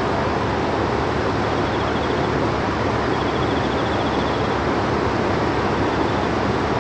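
River in full flood after a typhoon, its fast brown water rushing past as a loud, steady noise that never lets up.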